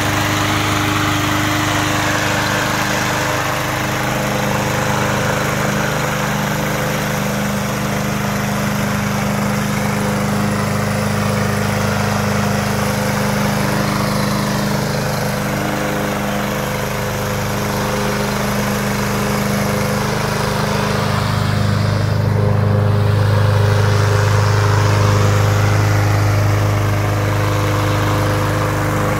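Craftsman M260 lawn mower's 163cc Briggs & Stratton engine running steadily as the mower is pushed over the grass, mowing. It gets louder for several seconds about three-quarters of the way through.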